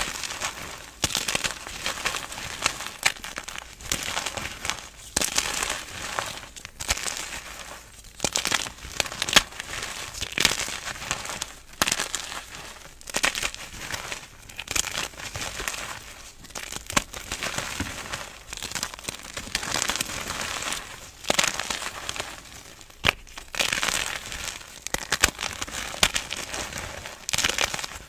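Dry, crunchy crumble material being crushed and crumbled, in repeated crackly crunches about a second long with short pauses between them.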